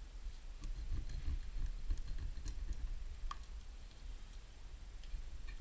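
A knife blade cutting hot glue and plastic tubing along the rim of a glass vase, giving scattered small clicks and ticks.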